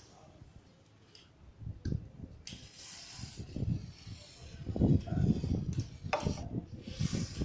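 Aerosol brake cleaner sprayed through its straw in short hissing bursts, one near the middle and one near the end, with low rubbing and handling noise in between.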